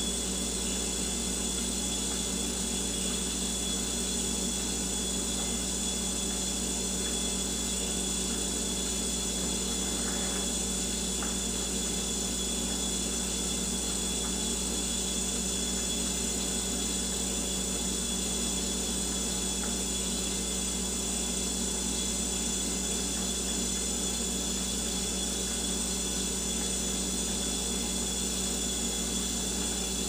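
Old Frigidaire refrigerator, over 20 years old, running, its cooling coils giving a weird steady noise that sounds like running water: a low hum with a hiss and a couple of high steady tones over it.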